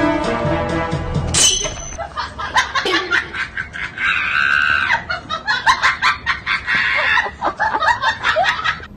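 Music for about the first second and a half, cut off by a sharp crack, then rapid chopped bursts of people's voices laughing and shrieking.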